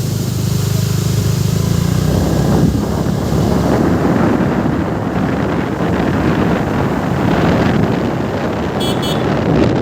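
Steady rushing roar of a waterfall mixed with wind buffeting the microphone. A low steady hum fades out in the first two seconds, and a brief high-pitched sound comes near the end.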